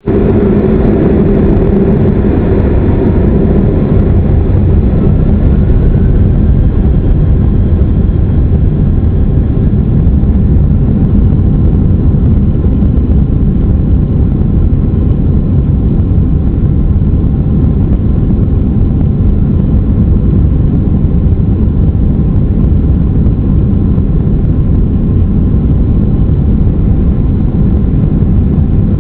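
Boeing 767-200 takeoff heard from inside the cabin: a loud, steady, heavy rumble of the jet engines at takeoff power, with a faint rising whine a few seconds in.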